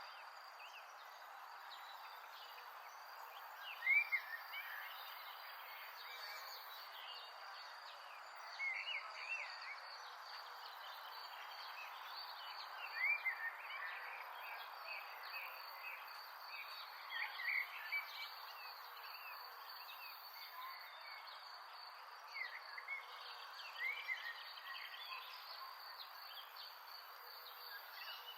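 Outdoor nature ambience: short chirping animal calls, in small groups every few seconds, over a steady hiss and a high, even insect-like drone.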